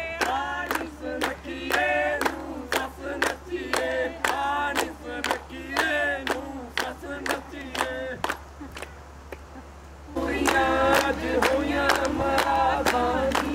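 A group of voices singing and chanting over a quick, steady beat of sharp strikes. The singing fades for a moment and then comes back louder about ten seconds in.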